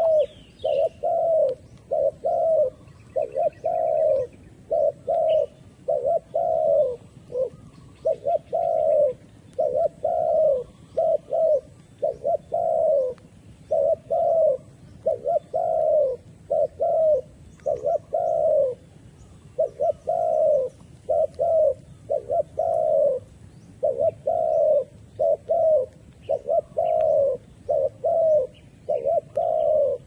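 Spotted dove cooing over and over, a long run of low coos at about one to two a second with brief pauses, the call of a decoy dove luring wild doves. Small birds chirp faintly near the start.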